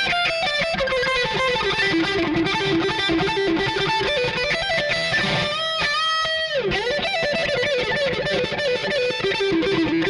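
Schecter C1 Custom electric guitar played through a distorted tone: a run of single-note lead lines, with a held note about six seconds in whose pitch dips and returns.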